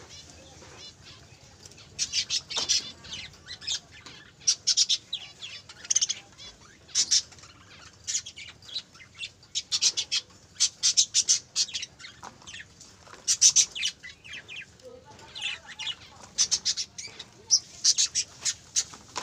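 A group of budgerigars chirping and chattering, with many short, sharp, high calls coming in quick clusters.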